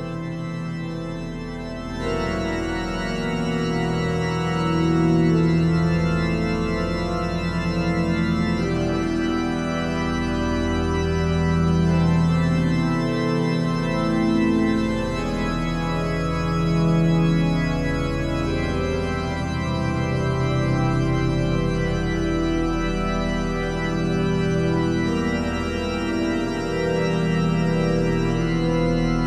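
Outro music: slow, sustained organ-like keyboard chords, changing every few seconds.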